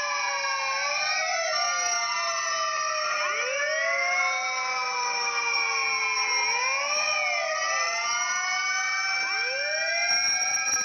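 Sirens of several fire trucks in a convoy wailing at once, many rising and falling tones overlapping without a break.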